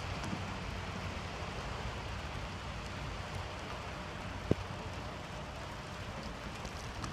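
Steady rain patter over a low rumble, with one short knock about four and a half seconds in.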